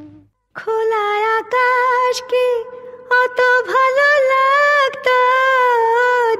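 Music: one song ends and there is a brief silence about half a second in. Then a Bengali modern song (adhunik gaan) begins, a woman singing a slow melody in long gliding phrases.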